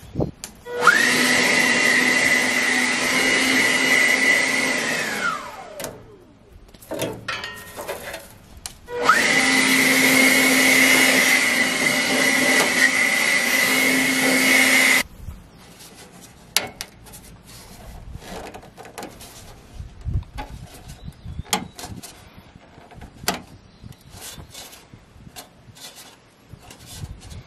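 Handheld leaf blower run in two bursts of about five and six seconds, its high motor whine spinning up at each start and winding down at each stop over the rush of air, blowing pine straw and dirt out of a tractor's radiator.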